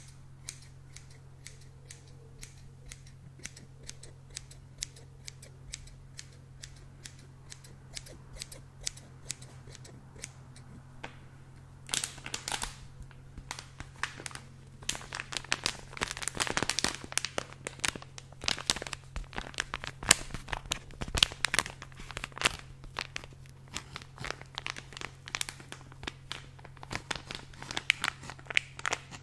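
Scissor blades snipping open and shut close to the microphone in a steady run of sharp clicks, then, partway through, a plastic bag of pompoms crinkling loudly as it is squeezed and handled.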